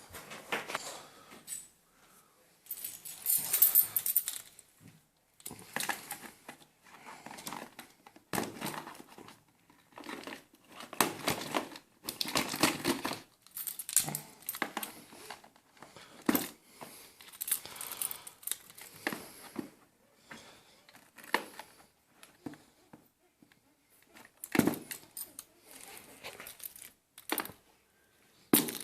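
Keyboard packaging being opened and handled: irregular bursts of plastic and cardboard crinkling, rustling and tearing, with scattered small clicks and knocks.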